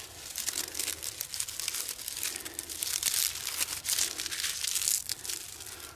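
Dry grass tinder being crumpled and rustled by hand: a dense, crisp rustling.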